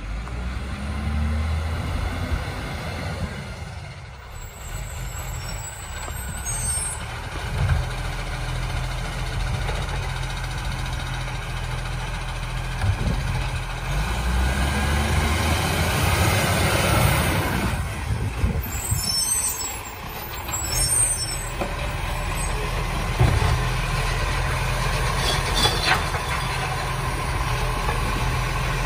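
Iveco automated side-loader garbage truck's diesel engine running as it pulls up to the kerb, with air brake hiss and a few clunks. The engine revs rise and fall twice as the hydraulic side arm works, and near the end the arm is lifting a wheelie bin.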